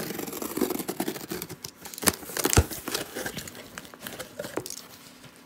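Cardboard shipping box being opened by hand: tape tearing and flaps crinkling and scraping as they are pulled back. There are a couple of sharp knocks about two to two and a half seconds in.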